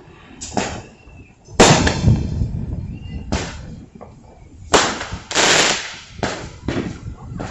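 Fireworks going off: a string of sharp bangs, several seconds apart at first and then closer together, the loudest about one and a half seconds in, with a short crackling burst around five and a half seconds in.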